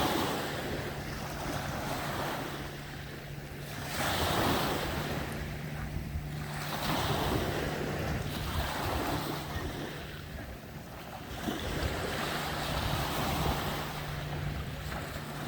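Sea waves washing in and drawing back, the surf swelling every two to three seconds, with wind buffeting the microphone and a steady low hum underneath.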